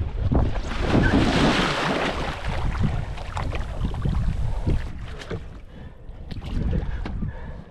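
Water splashing and sloshing close to the microphone, with a louder rush of water about a second in, over a rumble of wind on the microphone.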